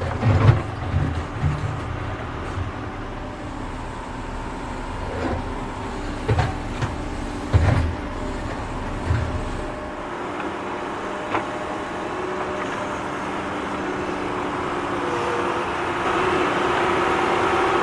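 Tractor digging: its engine is running with a deep rumble, and several sharp knocks and thuds come from the digging. About ten seconds in, the deep rumble fades and a higher, steadier engine note grows louder toward the end.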